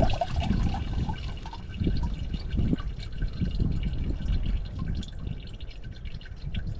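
Water trickling from a plastic jug over rocks just out of a rock tumbler, in a plastic bucket, rinsing them off, with small splashes and light clicks as the wet stones are handled.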